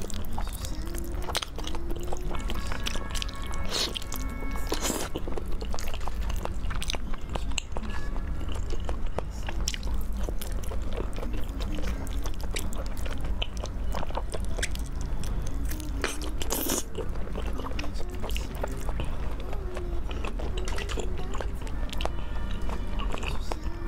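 Close-miked chewing and biting on soft, sticky spicy braised pork, with many short wet mouth clicks, over background music.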